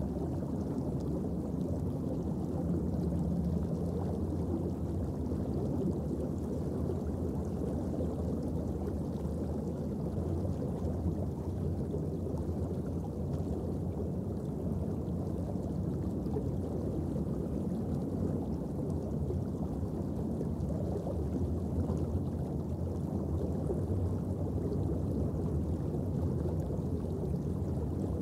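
Underwater ambient noise picked up by a camera in its housing: a steady, low rush of noise with no distinct events.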